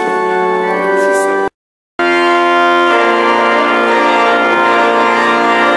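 Organ playing slow, sustained chords. About a second and a half in the sound cuts out completely for half a second, then returns with a fuller chord.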